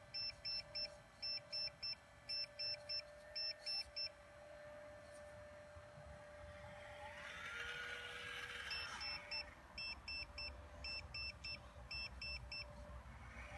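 Hydraulic RC excavator's electric pump motor running with a steady whine that rises in pitch about seven seconds in as the boom and swing work. Over it, two long runs of sharp high electronic beeps in quick groups of three, the loudest sound, a low-battery warning.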